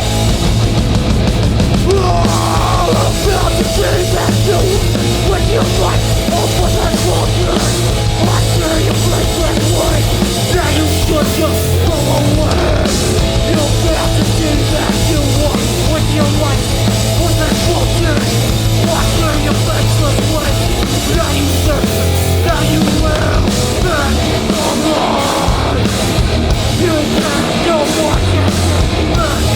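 Hardcore punk band playing live: distorted electric guitars, bass and drums, loud and continuous, heard through the hall's PA.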